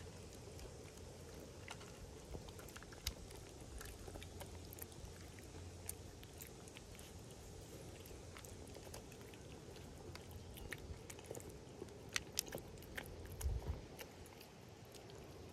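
A black-and-white domestic cat chewing wet food and dry kibble from a bowl close to the microphone: soft, wet chewing with many small clicks, which come thicker and sharper near the end.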